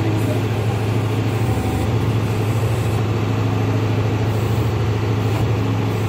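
John Deere 5310 tractor's 55 hp diesel engine running steadily, driving the Bull backhoe's hydraulics as the bucket digs into the soil.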